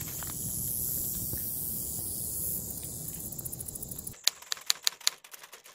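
Outdoor ambience: a steady hiss, then from about four seconds in a run of sharp, evenly spaced clicks, about five a second.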